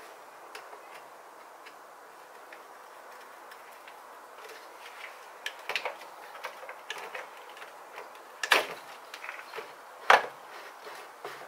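Small clicks and knocks of hands and tools handling parts in a car's engine bay, the engine not running. Two sharp, louder knocks come near the end, about a second and a half apart.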